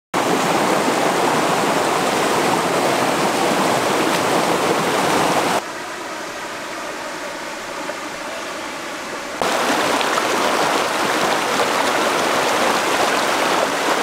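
Stream water rushing over rocks in a loud, steady wash. It drops to a softer trickle for a few seconds in the middle, then the loud rush returns.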